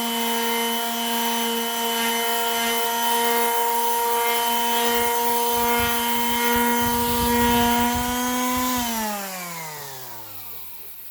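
Electric sander running steadily against wood, the motor's hum over the rough rasp of sandpaper on the board. About nine seconds in it is switched off and the hum falls in pitch as the motor winds down.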